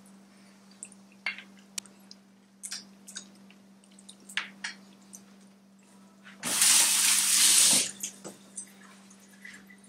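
Kitchen tap running into the sink for about a second, loud and noisy, starting and stopping abruptly. Before it come small scattered clicks and rustles of fingers handling food, and a steady low hum runs underneath.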